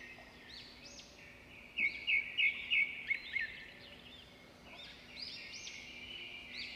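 Several wild birds singing, many short arching chirps overlapping, with a louder run of about six quick chirps about two seconds in.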